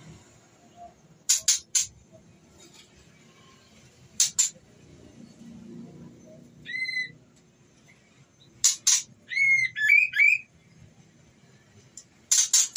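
White-rumped shama calling: sharp clicking notes in quick groups of two or three every few seconds, a single whistled note about seven seconds in, and a short warbled phrase around ten seconds. The uploader presents these as a female in breeding condition calling to a male.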